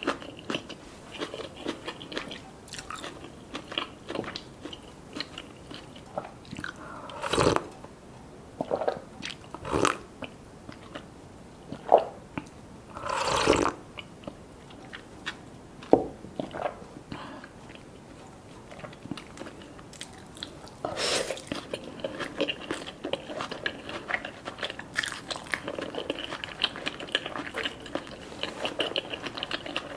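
Close-miked eating: a person biting and chewing black rice cones filled with seafood, with a steady run of small wet mouth clicks and a few louder bites, the biggest about 7, 10, 13 and 21 seconds in.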